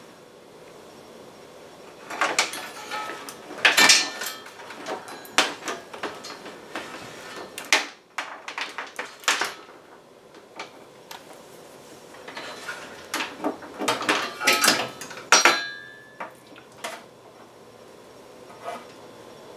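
Small tools and test leads being rummaged through and handled: irregular sharp clicks and clatters of hard plastic and metal, busiest from about two seconds in until about sixteen seconds, then a few faint clicks near the end.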